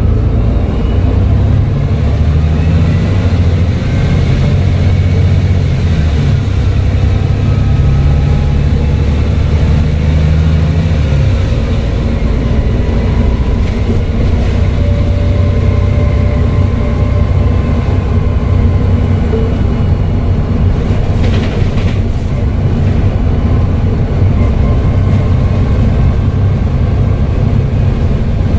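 Volvo B7TL double-decker bus's diesel engine running under way, with a faint whistle gliding up and down above the engine note. The engine pulls heavily for about the first ten seconds, then eases to a lighter note.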